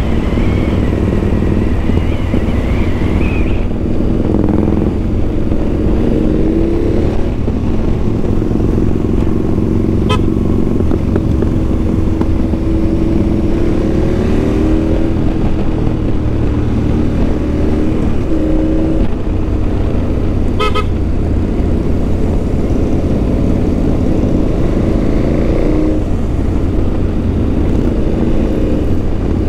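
Motorcycle engine running under way with heavy wind and road rumble on an onboard camera, the engine note rising and falling gently with the throttle. Two brief sharp sounds cut in, about ten and twenty seconds in.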